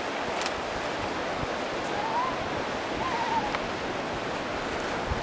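Surf washing over a rocky shore: a steady, even rush of sea noise.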